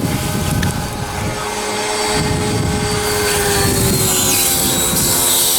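Pressure washer running with a steady motor drone that sags slightly in pitch, joined by a hissing spray from about three seconds in.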